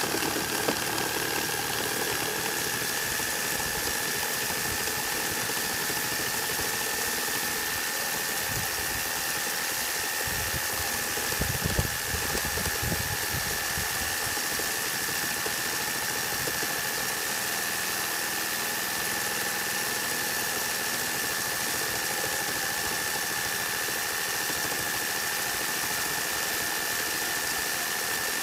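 Makita JR3050T corded reciprocating saw running steadily through a 150 × 200 mm wooden beam with a Bosch S 1542 K blade, fed only by a 5 kg hanging load: an even sawing with a steady high whine. The sawing grows briefly louder about twelve seconds in.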